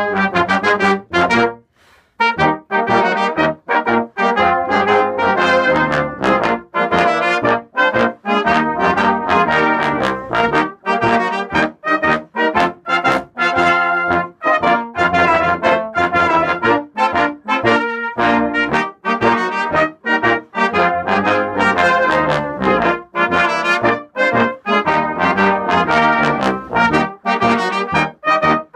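Small brass band ensemble (cornets, tenor horn, tuba and trombone) playing a lively piece in brisk, detached notes. There is a short break about two seconds in, then the playing carries on.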